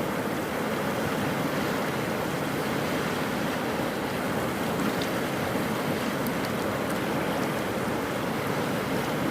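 Rapti River in flood: a steady, even rush of fast-flowing water, with a few faint small clicks.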